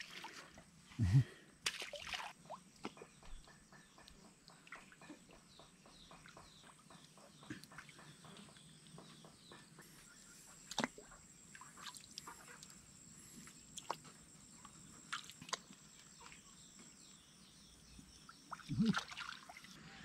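Scattered splashes and drips of muddy water as rice seedlings are pushed into a flooded pond by hand, over a quiet outdoor background.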